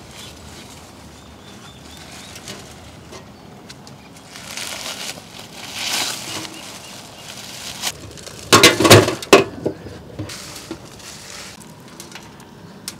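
Charred banana leaves and aluminium foil rustling and crackling as they are peeled away from a whole roasted mutton, with a louder second-long burst of sharp crackling about eight and a half seconds in.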